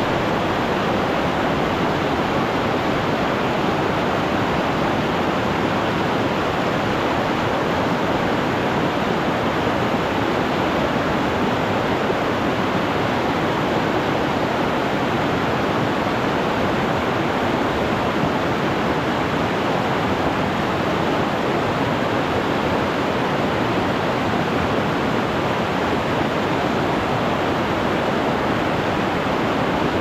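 Fast mountain river water rushing, a loud, steady, unbroken rush of water.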